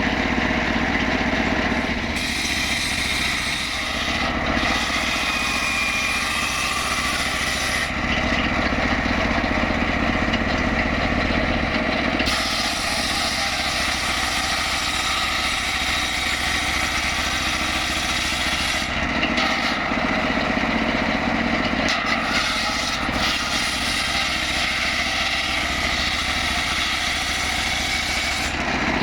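Engine of a wood saw running steadily. Over several long stretches a harsher high cutting noise comes in and drops away again as timber is sawn.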